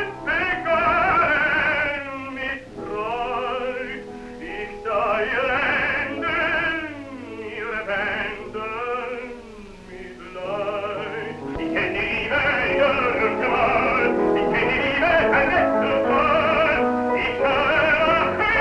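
Operatic tenor singing an operetta song with wide vibrato to piano accompaniment, in phrases with short breaths between them; an early-1930s sound-film recording.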